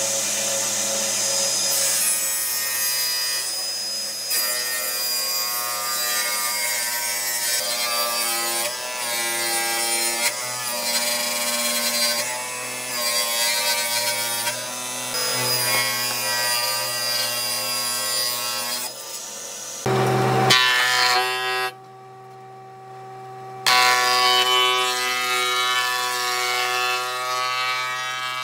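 Background music with the noise of woodworking tools working wood beneath it. The sound drops out briefly about three-quarters of the way through, then resumes.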